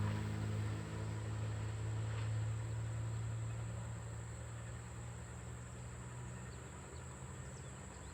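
Amtrak passenger train receding after passing, its low rumble fading steadily, with insects trilling in a steady high tone.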